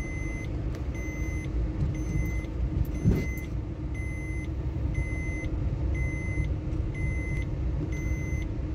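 Low rumble of a vehicle in motion, with a short, high electronic warning beep repeating about once a second. A single knock about three seconds in.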